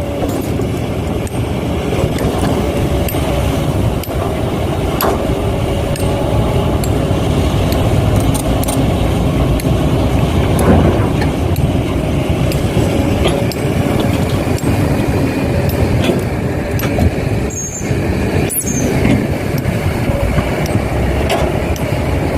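Excavator and dump trucks at work loading soil: a steady mechanical running noise with scattered clicks and rattles.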